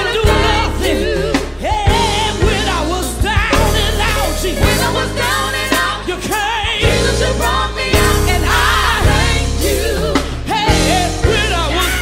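A gospel song playing: a lead singer's voice with wide vibrato over a band with heavy bass and drums.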